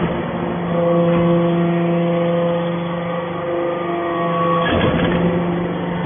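A metal-chip baler and its chain plate conveyor running: a steady machine hum, with a burst of clattering just before the end.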